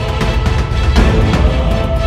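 Background music with a heavy bass line, a steady beat and held tones.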